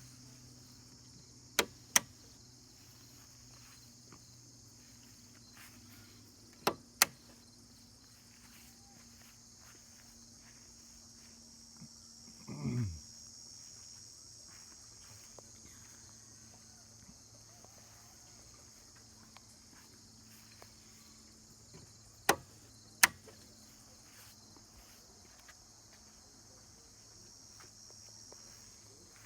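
A steady high insect drone with three pairs of sharp clicks, each pair about half a second apart, and one quick falling sweep midway.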